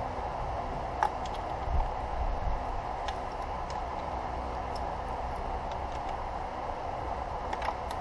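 Scattered light clicks and ticks of hand tools and engine parts being handled, a few seconds apart, over a steady background hum. The engine is not running.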